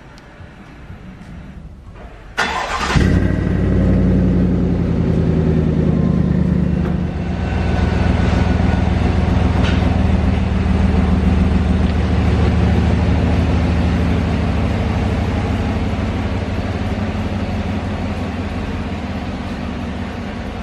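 2019 Chevrolet Silverado pickup's engine starting up about two and a half seconds in with a sudden loud burst, then running steadily through its exhaust.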